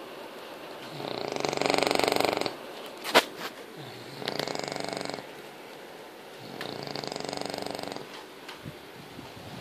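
English bulldog puppy snoring in its sleep: three long snores about two and a half seconds apart, with a single sharp click about three seconds in.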